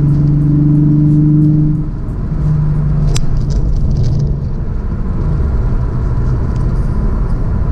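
Nissan 350Z's 3.5-litre V6 droning at steady highway cruise, heard from inside the cabin with road rumble; the drone eases about two seconds in, and there is a sharp click about three seconds in.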